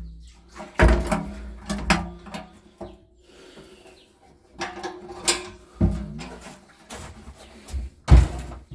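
Irregular knocks and clunks of objects being handled and set down, a dozen or so sharp hits spread unevenly, with the loudest near the end.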